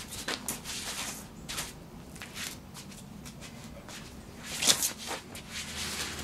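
Irregular short scuffs and swishes from quick footwork on stone paving slabs and a short polypropylene bat swung through the air during strike combinations. The loudest comes about four and a half seconds in.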